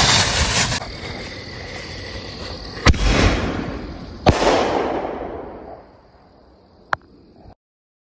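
Homemade mini salute canister firework going off: a short hiss at the start, then two sharp bangs about a second and a half apart, each trailing off in echoing rumble.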